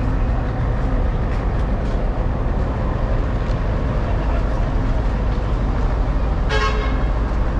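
Steady street traffic noise with a deep rumble, and one short vehicle horn toot near the end.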